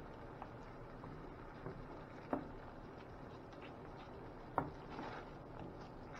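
Wooden spatula stirring thick tomato sauce in a stainless steel skillet: soft squishing and scraping, with two sharp knocks of the spatula against the pan, the first a little past two seconds in and the second about four and a half seconds in.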